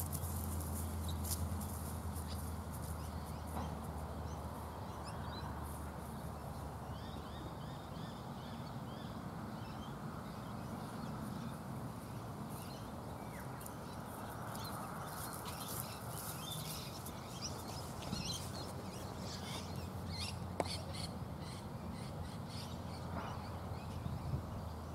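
Outdoor garden ambience: many birds chirping and calling, over a steady low hum.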